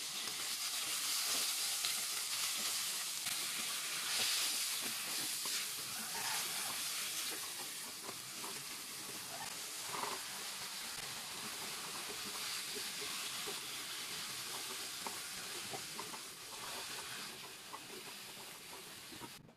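Chicken and vegetables sizzling steadily in a hot pan, with scattered clicks of stirring. There is a brief rustle about halfway as chopped cabbage is tipped in, and the sizzle eases off near the end.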